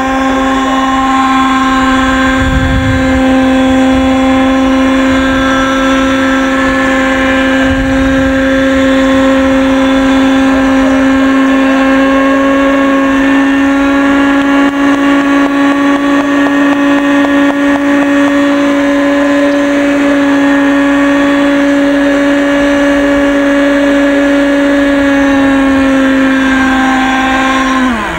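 Radio-controlled scale model helicopter's small engine running at a steady high pitch while it hovers, the note holding level and falling away at the very end.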